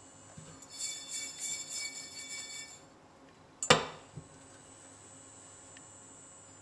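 Cumin seeds rattling in a nonstick frying pan as it is shaken on the hob while dry-toasting, a quick jingling rattle lasting about two seconds. A second or so later comes one sharp knock, the loudest sound.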